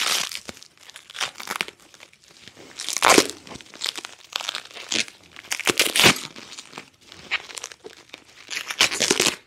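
Clear plastic bubble wrap being crinkled and pulled off a pair of metal rods by hand, rustling in irregular bursts that stop just before the end.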